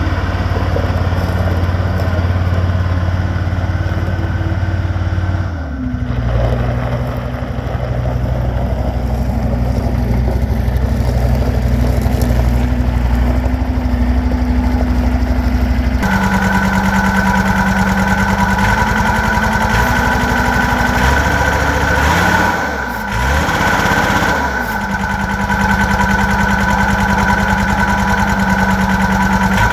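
John Deere 332 skid steer's four-cylinder turbo diesel engine running, its speed dropping about six seconds in and later dipping and coming back up twice. A steady high whine joins the engine over the second half.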